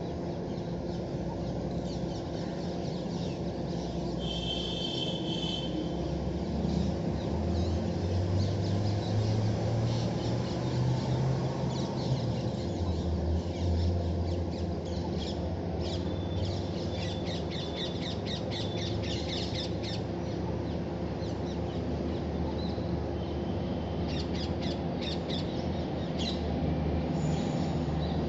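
Birds calling and chirping in bursts over a low rumble from a WAP7 electric locomotive and its train approaching in the distance.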